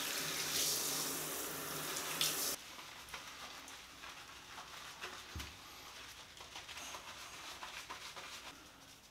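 Handheld shower head spraying water while rinsing a small dog in a bathtub, shut off abruptly about two and a half seconds in. After that, quiet wet rubbing as hands lather shampoo into the fur.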